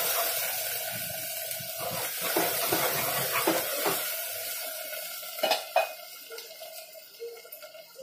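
A spatula stirring and scraping against a pot of sizzling onion-tomato masala, with knocks about two or three a second. The stirring stops after about four seconds, a couple of sharper knocks follow, and the frying sizzle fades.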